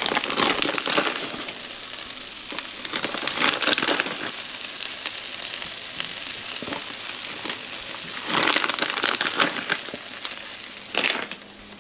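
Fajita-shell quesadillas with chicken, peppers, onion and cheese sizzling in a hot frying pan, a steady frying hiss with louder bursts of noise a few times.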